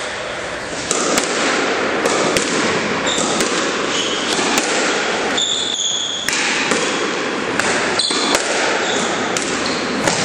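Squash rally: the ball cracking off rackets and smacking against the court walls and floor in sharp, irregular hits that ring in the enclosed court, with a couple of short shoe squeaks on the floor about halfway through.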